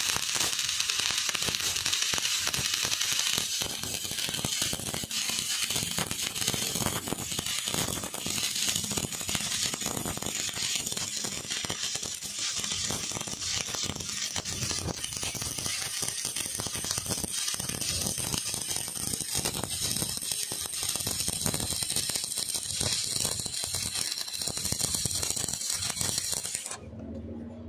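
Electric arc welding a bead along the joint between two steel plates: the arc's steady, dense crackle and sizzle, which cuts off suddenly near the end as the arc is broken.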